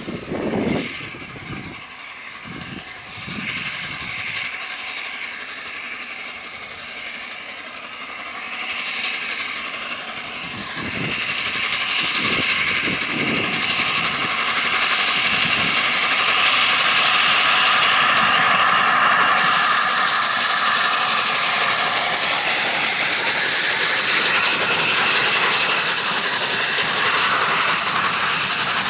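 Peppercorn A1 Pacific steam locomotive Tornado, working hard, approaching and passing close by. Its exhaust beats and steam hiss grow louder over the first half. They give way to a loud, steady noise of its coaches rolling past.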